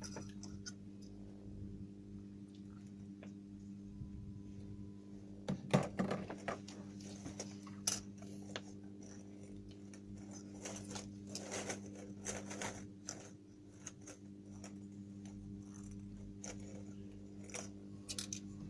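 Scattered small clicks, taps and clatters of objects being handled, over a steady low electrical hum. A faint steady tone sounds for about a second around four seconds in.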